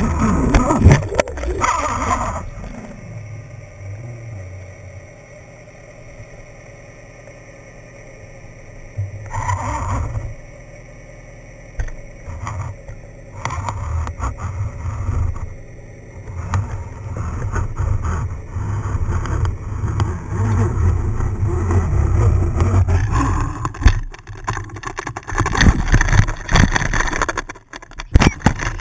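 Muffled low rumble and water rush heard through a GoPro's waterproof housing as it is pulled up through the sea, rising and falling in surges. Near the end come sharper knocks and splashing as the camera reaches the surface.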